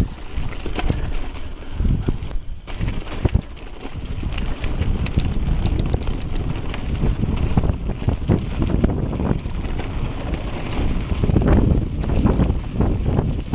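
Wind buffeting the camera's microphone and tyres rumbling over a rough, muddy track as a Giant Anthem X full-suspension mountain bike descends fast, with frequent knocks and rattles from the bike over bumps, loudest near the end.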